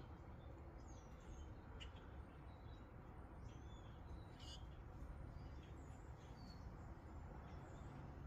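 Near silence: a low steady background rumble with faint, scattered bird chirps.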